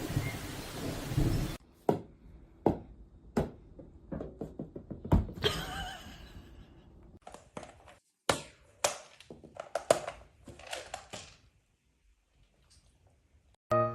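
Rain hiss cuts off suddenly about a second and a half in. It is followed by a series of irregular knocks and thunks, as of something hard being knocked about. Near the end music starts.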